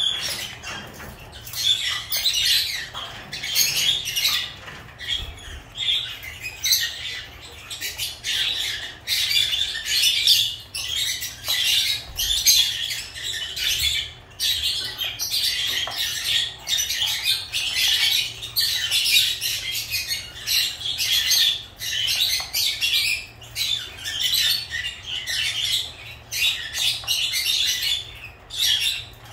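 Lovebirds chattering: a continuous stream of rapid, high-pitched chirps and squawks with only brief pauses.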